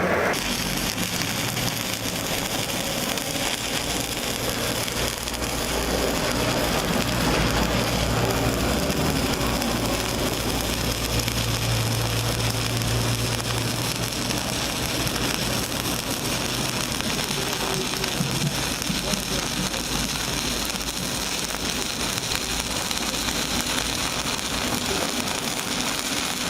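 Electric stick (arc) welding: the arc crackles and sizzles steadily like rain or frying, with a low hum underneath that is strongest around the middle.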